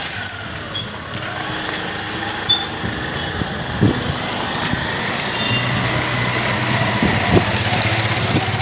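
A motor vehicle running, with steady engine and road noise. Short high-pitched tones sound at the start and again near the end.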